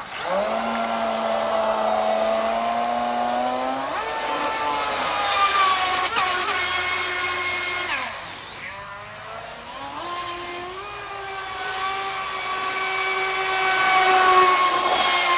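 Brushless motor of an H-King Aquaholic V2 RC deep-vee racing boat whining as the boat runs on the water. The whine steps up in pitch about four seconds in, falls and quietens around eight seconds as the throttle eases, then climbs again, loudest near the end.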